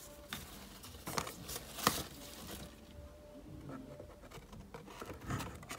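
Paper pages of a desk calendar being lifted and flipped over: a few light rustles and taps, the loudest about two seconds in, with another rustle near the end.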